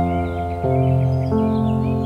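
Background music: ambient new-age chords of sustained notes, the notes changing about every two-thirds of a second, with faint high chirps over them.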